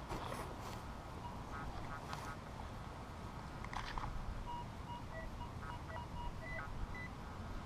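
Minelab CTX 3030 metal detector giving short beeps at several different pitches as its coil passes over buried targets, over a steady low rumble of wind.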